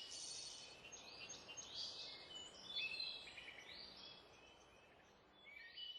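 Faint birdsong: a string of short chirps and quick twittering notes over a soft hiss.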